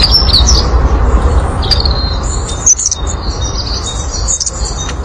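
Small birds chirping and twittering, with many short high calls and quick rising chirps, over a steady low rumble.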